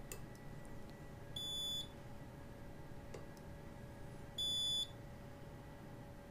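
Micro-Measurements Model 700 strain-gauge spot welder giving a short high electronic beep twice, about three seconds apart, each one marking a spot weld being fired through the gauge's shim onto the steel. A few faint clicks come in between.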